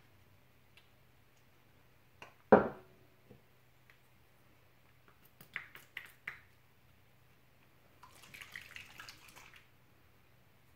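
Makeup products being handled on a table: a single sharp knock about two and a half seconds in, a few light clicks around six seconds, then a brief soft wet squishing sound near the end.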